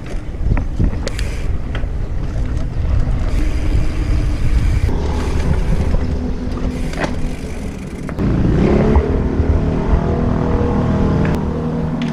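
Street traffic: a motor vehicle's engine running close by over a constant low rumble, getting louder and rising briefly about eight seconds in, then holding steady.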